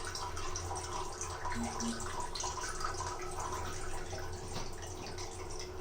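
A cat urinating into the toilet bowl through a training seat's open centre: a steady thin trickle of urine into the water, with small drips.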